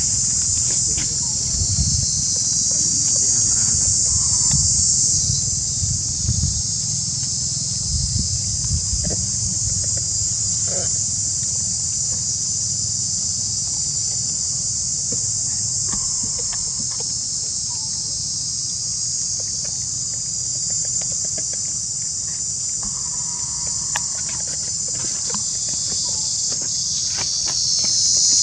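A loud, steady chorus of insects, high-pitched and unbroken, with a low rumble underneath.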